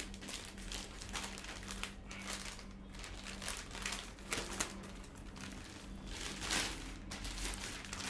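Clear plastic bag crinkling and rustling in irregular bursts as a rack-mount audio interface is slid out of it by hand.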